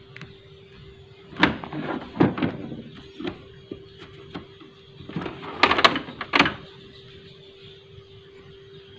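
Plastic scanner lid and scanner unit of a Canon PIXMA G2010 printer being opened by hand: a few separate knocks and rattles, with the loudest cluster about six seconds in, over a faint steady hum.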